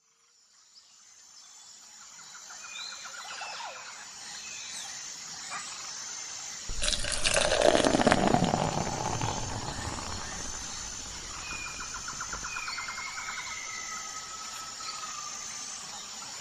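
Brown bear in a pool of water: a sudden loud splash and rush of water about seven seconds in that trails off over several seconds. Birds chirp and twitter in the background throughout.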